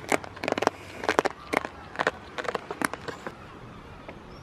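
A quick, irregular run of close clicks and knocks, about a dozen in three seconds, that stops near the end. It comes from a goat mouthing and bumping right at the camera.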